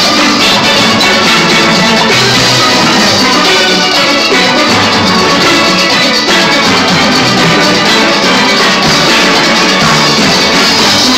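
A steel band playing live: many steel pans struck together with sticks, loud and continuous.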